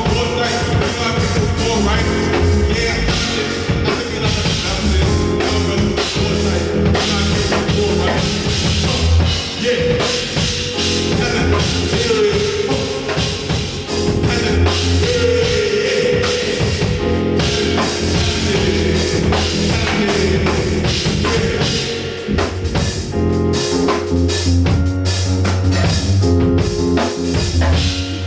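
Live rock band playing: drum kit keeping a steady beat under bass, keyboards and sustained melodic lines, with some singing.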